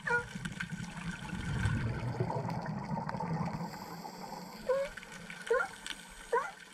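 Underwater bubbling rumble of scuba exhaust bubbles for the first four and a half seconds. Then three short calls that bend in pitch, from California sea lions vocalising underwater.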